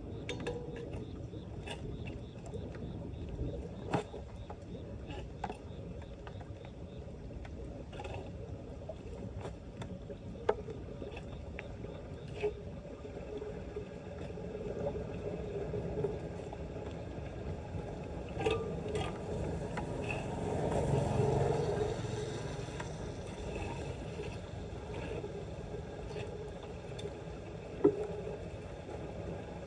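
Shallow floodwater sloshing and splashing as debris is worked at a clogged street storm drain, with scattered sharp knocks and a louder stretch of splashing about two-thirds of the way through.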